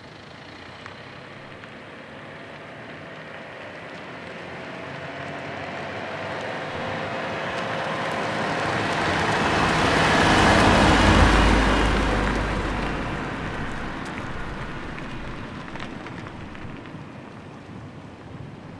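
A car driving past at slow speed, its engine and tyre noise growing steadily louder to a peak about eleven seconds in, then fading away as it moves off.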